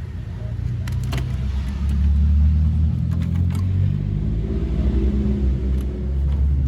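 Low rumble of a motor vehicle engine running close by, growing louder about two seconds in, with a few light clicks over it.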